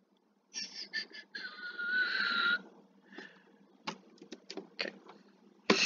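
A quick run of about half a dozen mouse clicks around four seconds in, with breathy, wheezy noises before them and a loud breath near the end.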